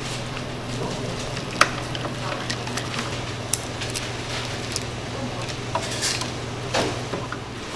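Wooden fish-cake skewers clicking and knocking against each other and the pot as they are set into simmering broth, over the broth's bubbling and a steady low hum that stops near the end.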